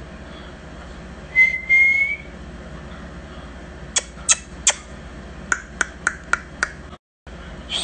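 A person whistles one short note that rises slightly, then makes a string of sharp clicks: three, then five more in quick succession.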